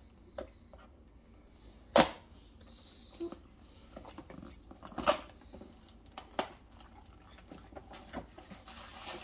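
Small cardboard box being opened by hand: scattered taps and scrapes on the cardboard, with a sharp snap about two seconds in and further clicks around five and six seconds in, then rustling near the end as the lid flap is pulled up.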